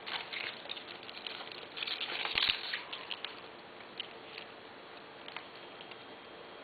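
Irregular rustling and small clicks of fresh tulip stems, leaves and twig pieces being handled and pushed together into a bouquet, with a denser crackling flurry and a light knock about two and a half seconds in.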